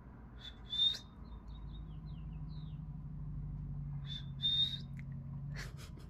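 Cockatiel chirping: a sharp call about a second in, a string of soft short chirps after it, and two more calls around four to five seconds in, with a few light clicks near the end.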